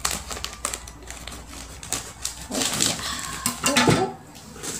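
Scissors snipping through a thin plastic mailer bag in a series of short clicky cuts, with the plastic rustling and crinkling; a louder burst of rustling comes near the end as the cut-off strip is handled.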